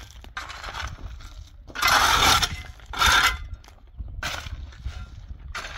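A shovel blade scraping into loose crushed stone and scooping it, a gravelly, clinking scrape repeated about five times, loudest around two and three seconds in.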